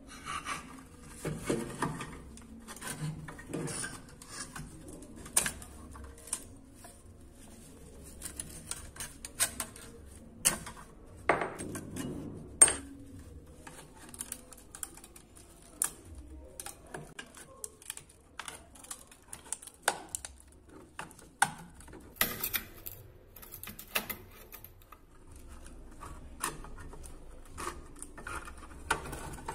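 Rusty sheet-metal frame of an old glass-paned oil lamp being pried and bent apart with a flat screwdriver and pliers: irregular sharp metal clicks, taps and short scrapes.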